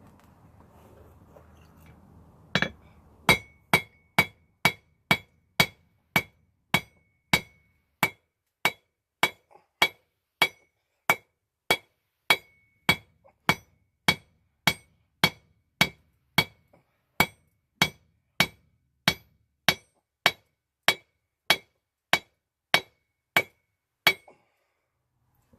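Blacksmith's hammer striking steel on an anvil in a steady rhythm of about two blows a second, each with a short metallic ring. The hammering starts a couple of seconds in and stops shortly before the end.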